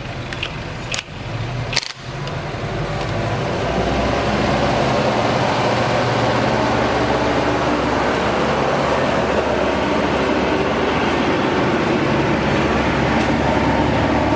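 An engine running, with two sharp clicks about one and two seconds in, after which the engine speeds up over a couple of seconds and runs steadily and loudly.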